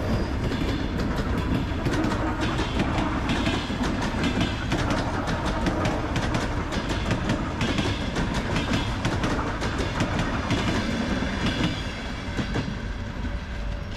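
ER9-series electric commuter train running past close by: a steady rumble of wheels on rails with many rapid clicks, easing off about twelve seconds in as the last car goes by.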